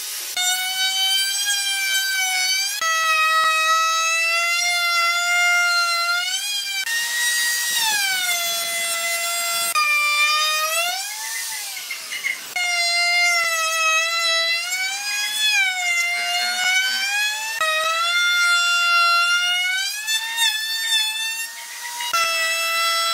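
A high-speed electric power tool motor whining loudly. Its pitch sags and climbs again every few seconds as the load on it changes while it cuts wood.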